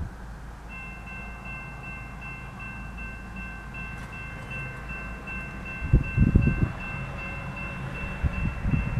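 Railroad crossing warning bell starting to ring about a second in, sounding rapid even strokes as the crossing activates for an approaching train. Loud spells of low rumbling come about six seconds in and again near the end.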